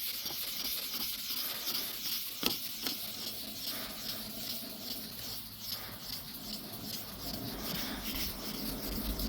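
Wet sandpaper rubbed over a car's painted panel: a soft, even hissing scrape with a few faint ticks.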